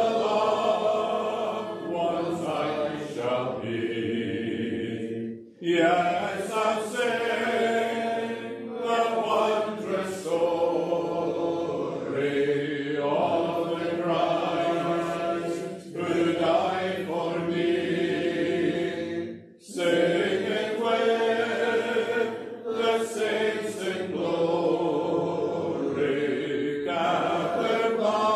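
Congregation singing a hymn together in slow, held phrases, with short breaks between lines about five and twenty seconds in.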